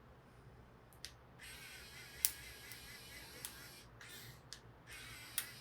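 A 3D pen's filament feed motor whirring faintly as it pushes PLA through, in two stretches: from about a second and a half in to nearly four seconds, and again for about a second near the end. A few sharp clicks, the loudest about two seconds in.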